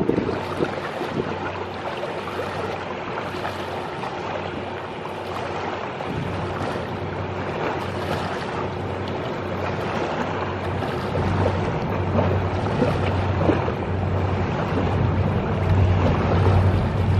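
Low, pulsing drone of a tugboat's diesel engine carried across the water, growing louder toward the end, over small waves lapping and splashing on the beach and wind on the microphone.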